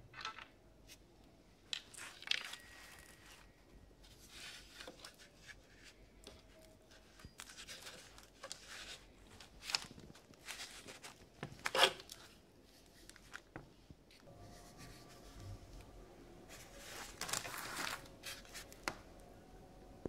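Handling noise from an old, dirt-caked plastic rotary dial telephone: scattered rubbing, scraping and light knocks as it is turned over and set down, with a sharper knock about midway.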